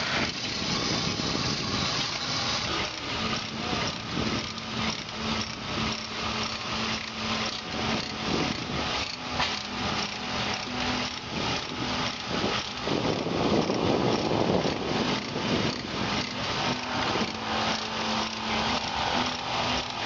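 Keck-Gonnerman steam traction engine running while belted to a sawmill, its exhaust chuffing in a fast, even rhythm of about three beats a second.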